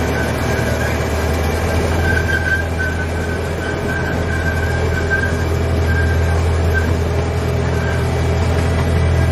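A steady low mechanical hum, like a vehicle engine running, with a faint high squealing tone coming and going above it.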